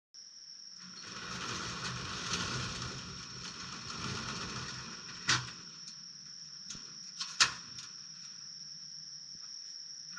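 Night-time outdoor ambience: insects keep up a steady high-pitched trill under a low rumble, with a swell of noise over the first half. Two sharp clicks come about five and seven seconds in.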